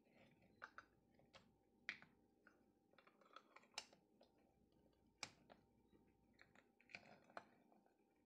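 Faint clicks and taps of a small clear plastic container being handled and its lid worked open, with a cluster of clicks near the end as golden raisins are tipped out onto a wooden cutting board.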